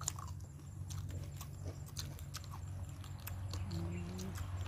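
Chewing and lip-smacking of people eating braised pork legs with their fingers: scattered short wet clicks and smacks over a steady low hum, with a brief hummed 'mm' near the end.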